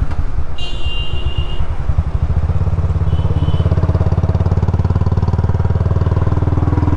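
Royal Enfield Bullet's single-cylinder engine running as the bike is ridden, its exhaust beats coming in a fast, even rhythm. A short high tone sounds about half a second in, with a fainter one a little after three seconds.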